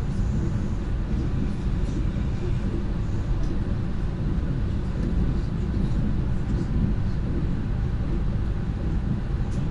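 Lastochka electric train running at speed, heard from inside the carriage: a steady low rumble of the wheels on the track.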